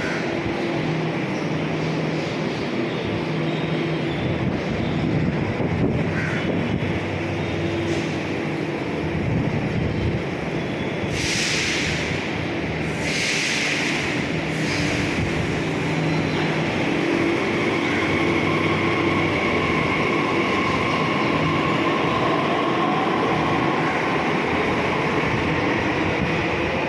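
Delhi Metro train running, with a steady rumble and low electric hum, several short bursts of hiss about halfway through, and a steady high whine in the second half.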